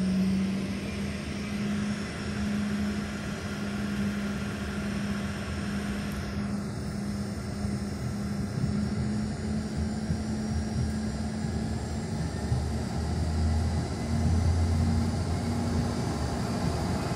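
Airliner engines heard from inside the cabin over the wing: a steady hum with a constant low tone as the plane lines up on the runway. A deeper rumble joins about two-thirds of the way through, and the sound grows a little louder near the end as the takeoff begins.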